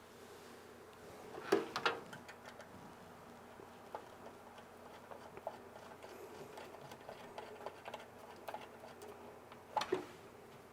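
Light clicks and taps of small metal standoff screws being handled and threaded into a CPU cooler mounting bracket, with a short cluster of louder clicks about a second and a half in and another near the end.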